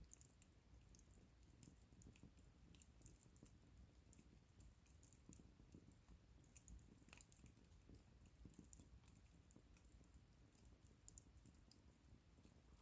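Faint, irregular crackling and popping of a wood bonfire over a low steady rumble.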